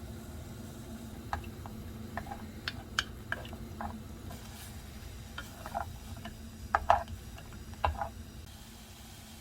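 Kitchen utensils clinking and knocking against dishes or cookware, irregular short strikes with brief ringing over a steady low hum; the loudest strikes come about seven and eight seconds in.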